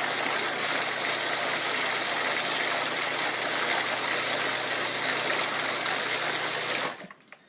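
Countertop blender running steadily as it blends a fruit smoothie, then switched off, the sound cutting off suddenly near the end.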